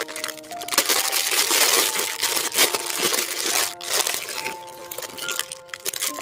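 Crackling and crinkling of packaging being handled, with small clicks and clinks, over held tones of background music.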